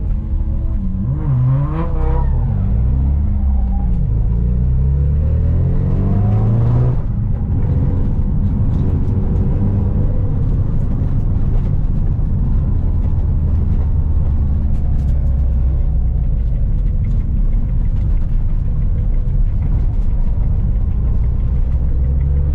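Mazda RX-7 (FD3S) engine heard from inside the cabin, revving up and down hard through a drift for the first seven seconds or so, then running more steadily at lower revs.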